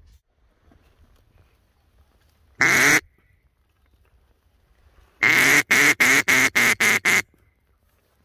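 Duck call blown to lure ducks: one loud drawn-out quack, then about two seconds later a quick run of about eight short quacks.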